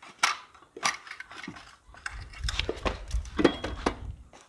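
A manual gearbox being tugged off the back of a VW 1.9 TDI engine: a run of sharp metal clicks and clunks as the bellhousing works free. A low rumble joins from about two seconds in.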